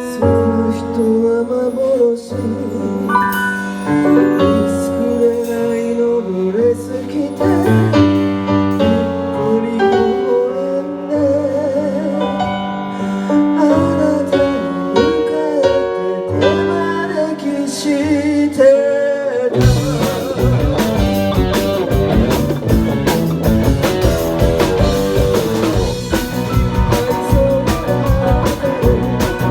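A live band playing, with sustained keyboard chords and a melody line over them. About two-thirds of the way in, the drums and the full band come in together, and the music carries on at full strength.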